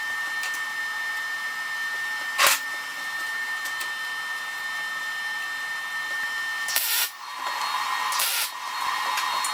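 Steel square-tube parts being handled during fit-up, over a steady whirring hum: one sharp metallic knock about two and a half seconds in, then two short scraping hisses around seven and eight seconds.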